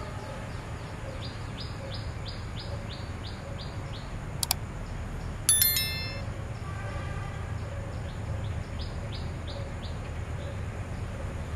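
Small birds chirping over a low steady rumble, a short high call two or three times a second. About four and a half seconds in comes a sharp click, and a second later a bright ding from a subscribe-button animation, the loudest sound here. A faint distant train horn follows about seven seconds in.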